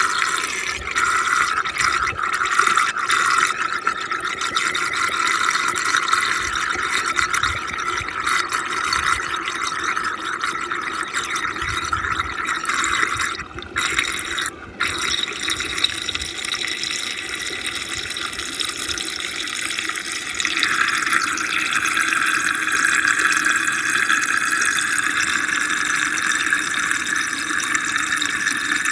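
Muddy water swirling and rushing in a fast whirlpool vortex, a steady rush of water with two short breaks about halfway through.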